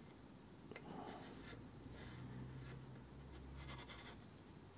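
Faint scraping and rubbing of a hand reaming tool being handled and fitted into the valve port of a flathead engine block, in short clusters about a second in and again near the end. A faint low hum sits under the middle of it.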